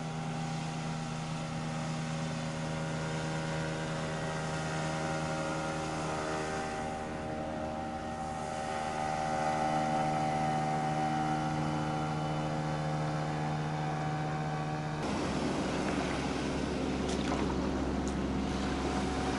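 Boat motor running steadily, its pitch shifting slightly midway; about fifteen seconds in the sound changes abruptly to a lower, rougher engine note.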